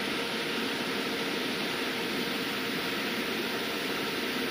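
Cooling fan of an EMotorWerks SmartCharge-12000 EV charger running steadily while it charges under load: an even rushing noise with a faint constant tone.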